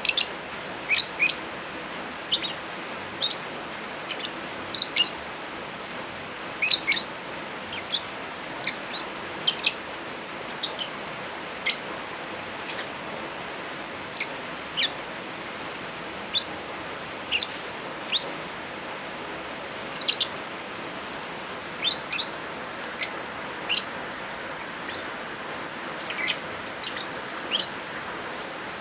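Lovebirds chirping in short, sharp, high calls, scattered irregularly, a few seconds apart or in quick clusters, over a steady hiss of rain.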